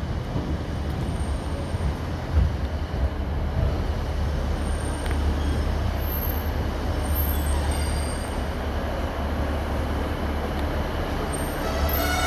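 Class 150 Sprinter diesel multiple unit pulling slowly into the platform: a steady low diesel rumble, with faint thin high squeals from the wheels and brakes now and then as it slows.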